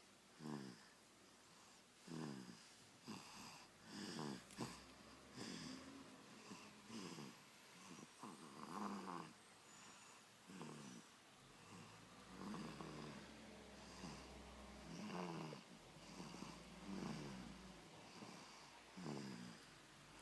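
A sleeping baby snoring softly, a short snore every second or two, each one dropping in pitch.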